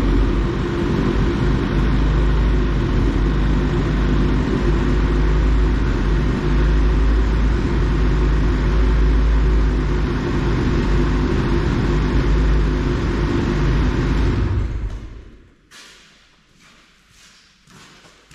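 Two-stroke Lynx snowmobile engine idling steadily to warm up, then shut off about fifteen seconds in. A few light knocks follow.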